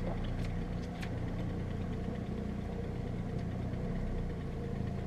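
Boat engine idling steadily, a low even hum with a couple of faint light clicks in the first second.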